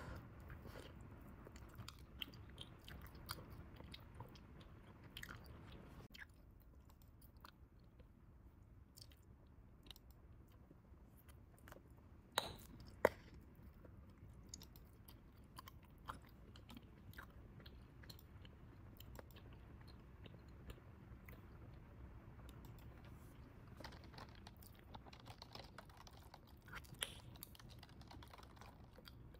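Bubble gum chewed quietly close to the microphone: soft, wet clicks and smacks at an uneven pace, with two sharper snaps a little before the middle.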